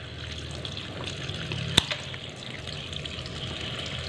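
Tap water running steadily into a stainless steel sink, with one sharp snip of kitchen scissors about two seconds in as they clip a sharp tip off a crab's leg.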